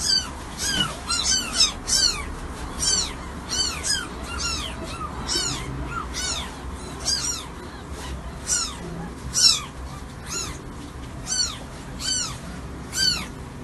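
Newborn kittens mewing: a steady string of short, high cries, each rising and falling in pitch, about two a second.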